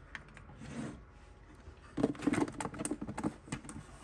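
Nightstand drawer pulled open: a quick run of small clicks and knocks from the drawer sliding and rattling, starting about halfway through.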